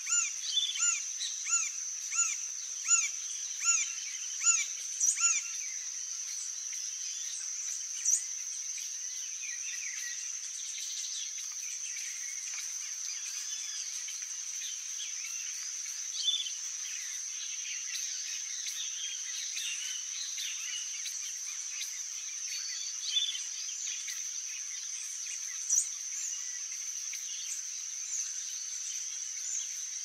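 Green-barred woodpecker calling a steady series of arched notes, about two a second, that stops about five seconds in. Behind it a steady high-pitched insect drone runs throughout, with scattered faint bird chirps and a few single louder notes.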